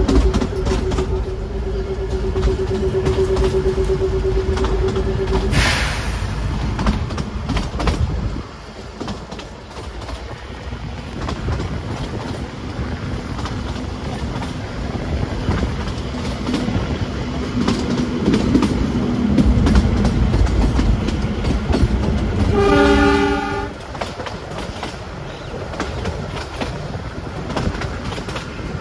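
Narrow-gauge Kangra Valley toy train running, with the wheels rumbling and clicking over the rail joints. The horn sounds twice: a long steady note over the first five seconds or so, and a short, fuller blast about three quarters of the way through.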